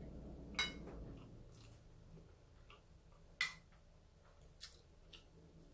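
Metal spoon and fork clinking against a plate a few times while eating: two sharper clinks, about half a second in and about three and a half seconds in, and fainter ones after.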